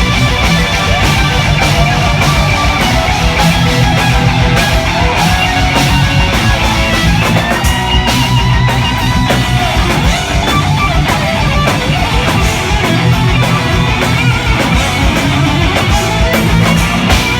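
Live heavy metal band playing: a distorted lead electric guitar shredding a fast solo over rhythm guitar, bass and a drum kit, loud and continuous.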